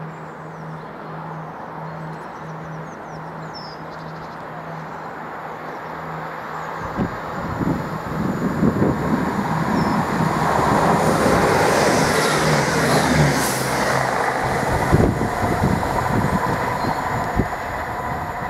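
A diesel multiple unit approaches and passes. Its engine and wheel rumble build to a loud peak about two-thirds of the way through, with scattered knocks from wheels over rail joints. After a sudden break, a second unit's running and wheel knocks are heard.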